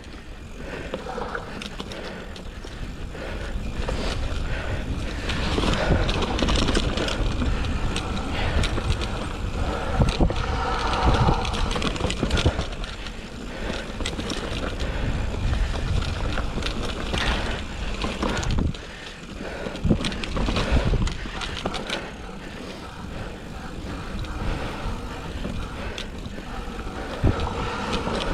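2007 Cannondale Rush mountain bike riding down a rough dirt trail: steady tyre and wind noise with frequent knocks and rattles from the bike going over bumps.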